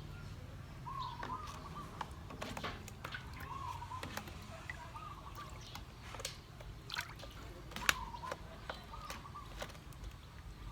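Small splashes, drips and sloshing of water in scattered short clicks, with a short warbling bird call repeating every second or two in the background.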